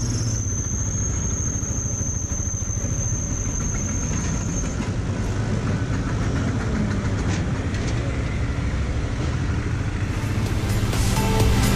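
Motorcycle engine running steadily at low speed, heard from the rider's seat, with a thin high whine over it for the first few seconds. Music fades in near the end.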